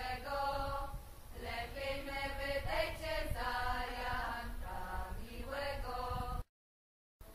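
A women's vocal group singing a slow traditional song a cappella in harmony, with long held notes and short breaks between phrases. The sound cuts out suddenly about six and a half seconds in.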